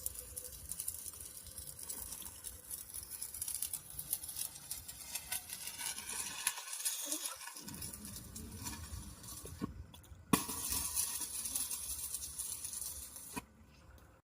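Electric arc welding: a continuous crackling, sizzling arc, broken off abruptly twice.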